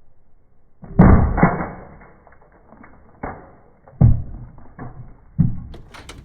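A brick dropped onto a flip phone: one heavy thud about a second in, then three smaller knocks over the next few seconds.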